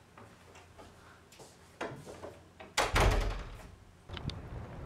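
Wooden room door being opened and shut, with a few light clicks and knocks first and a loud thud as it closes about three seconds in.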